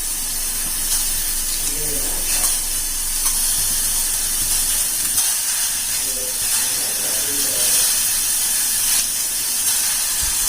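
Fresh ginger, black peppercorns and cumin seeds sizzling in a pan as they roast, a steady hiss.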